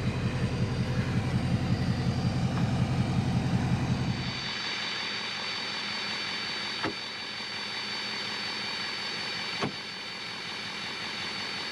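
A low pulsing rumble for the first four seconds. Then come two sharp clicks about three seconds apart as the Ford Excursion's rear Dutch doors are pushed shut and latch.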